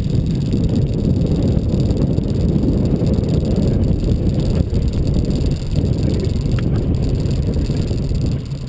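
Fishing boat under way on a lake: a steady low rumble of motor and water with some wind on the microphone.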